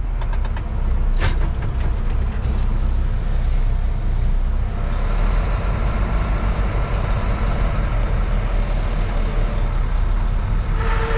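Semi truck's diesel engine running steadily while its air system builds pressure back up, with a couple of sharp clicks in the first few seconds.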